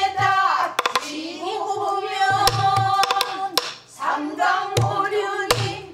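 Pansori singing with bending, held notes, accompanied on a buk barrel drum: sharp clicks of the wooden stick striking the drum and a few low thumps of the palm on the drumhead.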